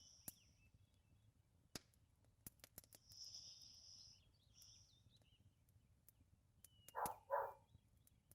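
Labrador retriever asleep, breathing softly through its nose, with two short, louder snuffles about seven seconds in. Faint crackles of a fireplace fire are scattered among the breaths.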